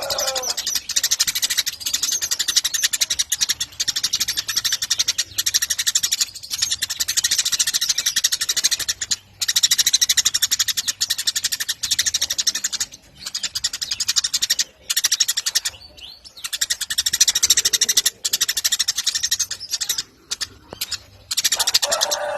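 Eurasian tree sparrows chirping in a dense, rapid run of high chirps, with a few short pauses.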